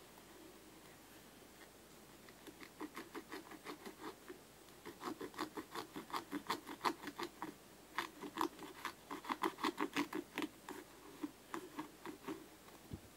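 A piece of a football boot's synthetic upper being cut: a quick run of short scratchy strokes, about five a second, coming in groups with brief pauses.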